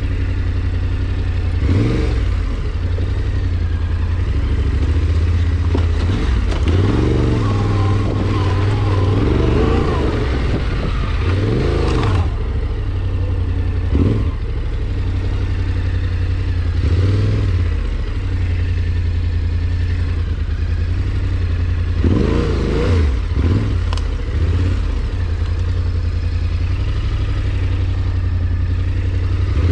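An engine running steadily throughout, with a deep, steady hum and several brief rises and falls in pitch over it.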